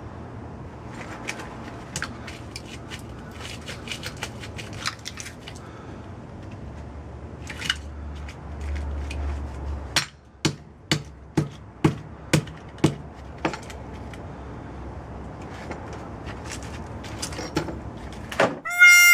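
Hammer striking a microwave oven transformer: a run of about seven sharp, ringing metal blows, roughly two a second, in the middle, with scattered clinks and clicks of metal being handled before it.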